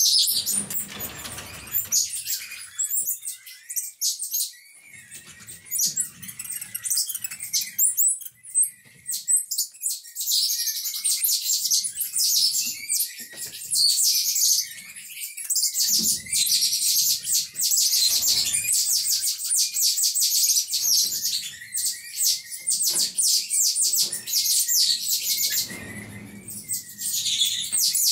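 Rapid high-pitched chirping: many short, sharp calls in quick succession, sparse at first and nearly continuous from about ten seconds in, with a few soft low thumps.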